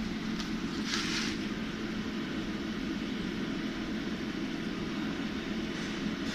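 Steady low machine hum, with a short hiss about a second in.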